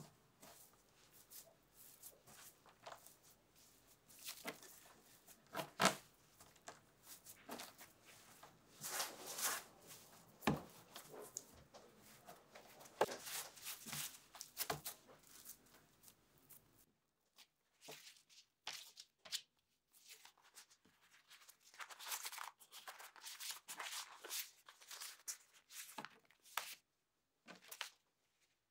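Hands pressing and gathering crumbly tart dough on a silicone baking mat: soft, irregular crackling, rustling and pats of the dough, with a few short pauses about halfway through.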